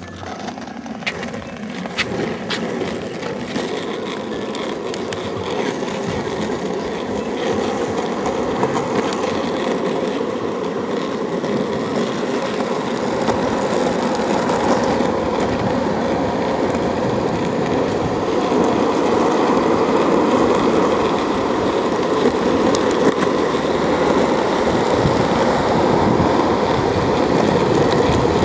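Longboard wheels rolling on asphalt, a steady rumble that grows louder as the board picks up speed downhill.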